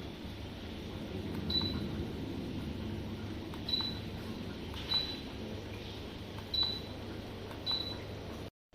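Five short, high electronic beeps, each with a faint click, over a steady low hum.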